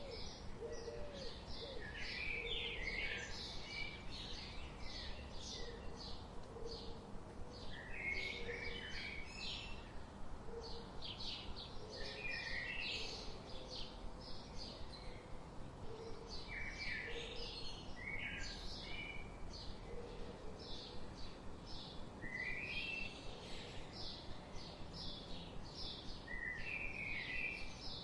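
Several birds chirping and singing together: a dense stream of high chirps, a song phrase that repeats about every four to five seconds, and short low calls underneath.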